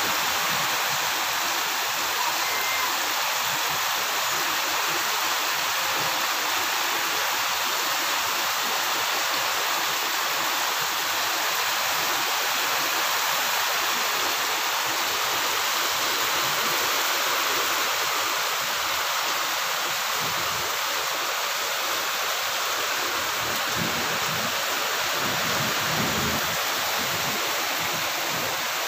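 Heavy rain falling steadily as an even hiss, with water pouring off the edge of a corrugated roof.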